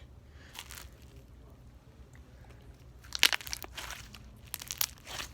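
Slime with beads in it being squeezed and poked in the hands, giving short clusters of crunchy, crackling pops, the loudest about three seconds in.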